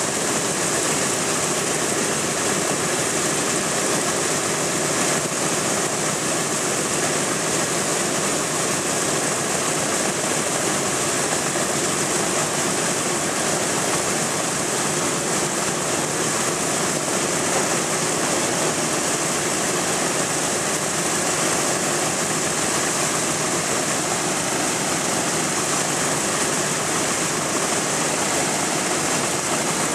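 Boeing B-17G bomber's Wright R-1820 Cyclone nine-cylinder radial engines running steadily with propellers turning, a loud, even noise that holds level throughout.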